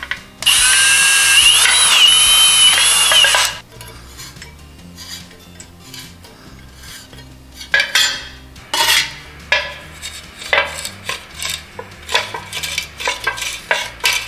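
Cordless drill running for about three seconds, its motor whine rising and falling as it bores a hole through a jar lid. From about eight seconds in there are light clicks and scrapes of small hand tools.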